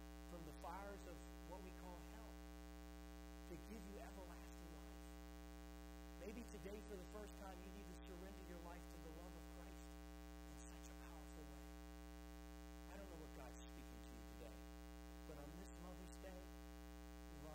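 Steady electrical mains hum, faint overall, with a man's quiet, indistinct speech coming and going over it.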